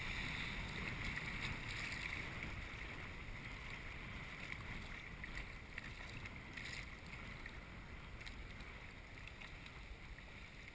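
Wind buffeting the microphone with small waves lapping on choppy water, faint and slowly fading.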